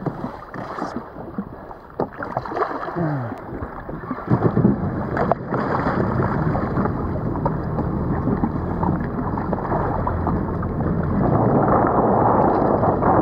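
Water splashing and sloshing against the side of a jet ski as a hooked marlin thrashes alongside, with wind on the microphone. A steady low hum sets in about four seconds in and continues.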